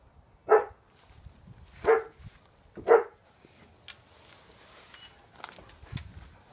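A pet dog barking three times in about two and a half seconds, each a single short, loud bark, then falling quiet. She is barking in reaction to the sound of another dog barking.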